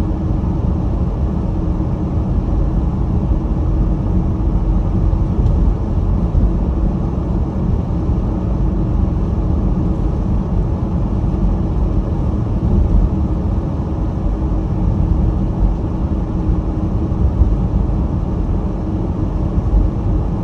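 Steady low rumble of tyre and engine noise inside the cabin of an all-wheel-drive car on snow tires as it drives along, with a faint constant hum underneath.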